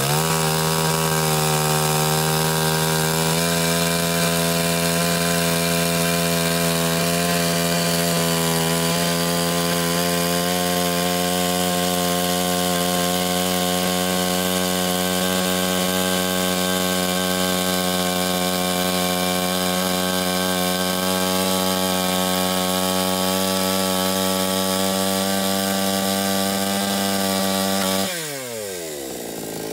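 Salem Master 58cc two-stroke chainsaw held at full throttle, cutting lengthwise along a cedar beam at a steady high pitch. About two seconds before the end the throttle is released and the engine falls away quickly to idle.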